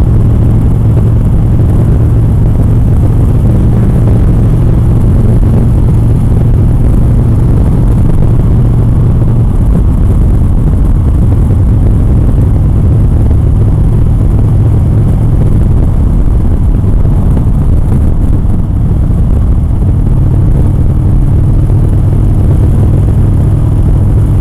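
Motorcycle under way at a steady road speed: a continuous low engine hum under a heavy rush of wind and road noise, heard through a helmet-mounted camera's microphone. The engine note shifts slightly a couple of times.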